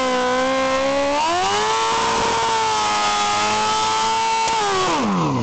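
Suzuki GSX-R's inline four-cylinder engine held at high revs in a stationary burnout, its rear tyre spinning against the asphalt with a hiss underneath. The revs climb about a second in, hold high and steady, then fall steeply near the end as the throttle comes off.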